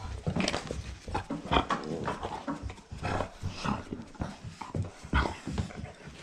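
Dogs making short, irregular noises, one after another.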